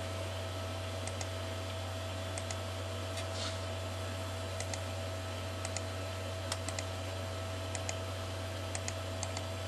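Computer mouse clicking every second or so, often in quick pairs, as points of a spline curve are placed in a drawing program. Under the clicks runs a steady electrical hum with a faint steady tone.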